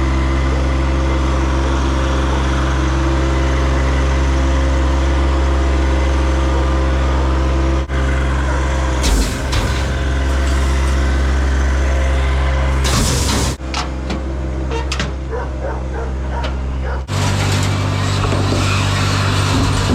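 An engine running at a steady speed throughout. Some clattering and knocks come in the middle, and the sound changes abruptly three times.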